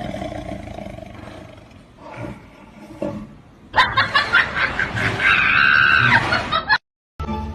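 A cat growling and yowling. It is quieter for the first few seconds, then much louder from about four seconds in, and cuts off suddenly near the end.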